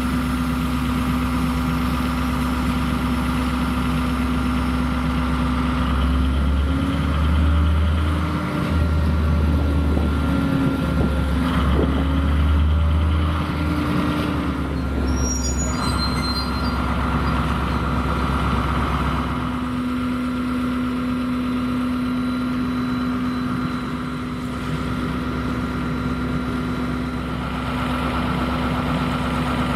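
Class 73/9 electro-diesel locomotive's MTU diesel engine idling with a steady hum; for several seconds around the middle the engine note grows louder and wavers in pitch before settling back to idle. A few brief high-pitched squeaks come about halfway.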